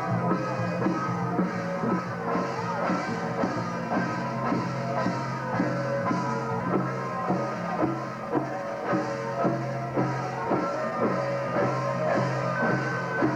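Music with a steady drum beat, about two strokes a second, under sustained melody notes.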